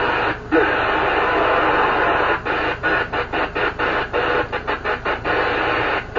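CB radio receiver hiss on an open channel, broken by a quick run of about a dozen very short dropouts in the middle.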